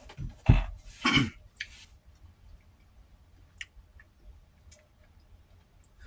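Mouth sounds of a man eating: a short deep gulp or smack about half a second in and another wet mouth sound just after a second, then a few faint clicks.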